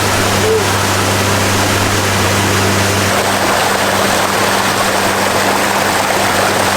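Pontoon boat underway: the Yamaha outboard runs with a steady low hum under loud rushing wind and water noise. The lowest part of the hum drops out about three seconds in.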